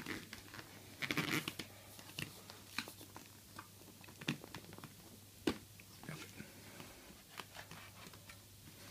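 Hands working the polycarbonate face shield of a Pyrotect racing helmet at its pivot post: scattered plastic clicks and handling rustle, with a cluster of rubbing clicks about a second in and the sharpest click about five and a half seconds in.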